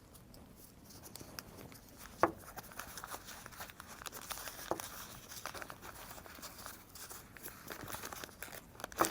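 Oil paper crinkling and rustling as it is unwrapped from a small metal valve part, with a couple of sharp clicks about two and four and a half seconds in.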